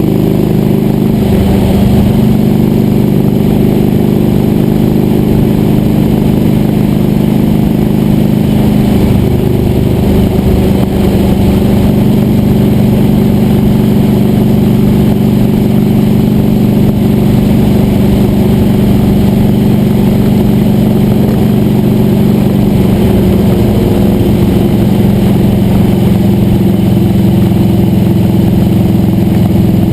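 A sawmill's engine running steadily at an even speed, its pitch holding level with slight shifts now and then.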